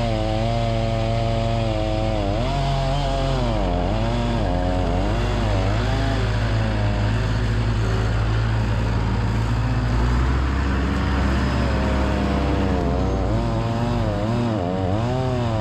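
Gas chainsaw running while cutting firewood, its engine pitch rising and falling about once a second as the chain bites into the log and frees up. A steadier, lower engine drone runs underneath and shifts pitch about ten seconds in.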